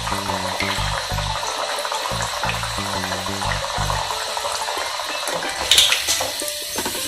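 A wheat-flour biscuit deep-frying in hot oil in a kadai: a steady sizzling hiss. About six seconds in comes a sharp metallic clink as a wire-mesh skimmer goes into the pan. Background music plays underneath.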